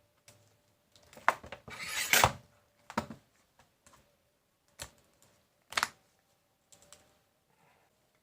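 A handful of separate clicks and light knocks, about one a second, from handling a MacBook Pro laptop on the bench, with the loudest ones in the first half.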